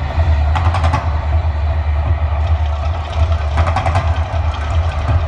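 Man-made volcano show erupting: a deep, steady rumble with bursts of crackling, whooshing fire, about half a second in and again around four seconds in.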